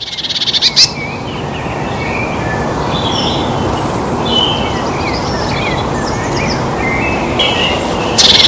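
Steady rush of a waterfall with several birds chirping and calling over it. A fast, loud trill builds up in the first second, and another loud call comes near the end.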